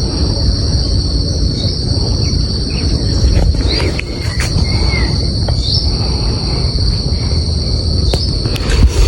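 A steady, high-pitched insect chorus, with a few short chirps over it and a loud low rumble underneath.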